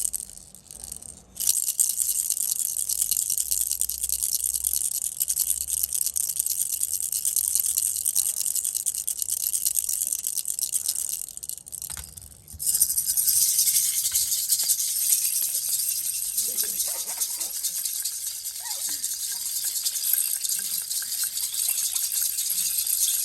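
Baby's toy rattle shaken steadily in a fast, dense, high-pitched rattle, with two short breaks: one at the start and one about halfway through.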